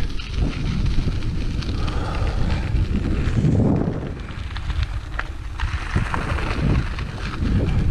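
Wind rumbling on the microphone of a bicycle rolling along a gravel trail, with the hiss of tyres on gravel and a few small ticks and rattles.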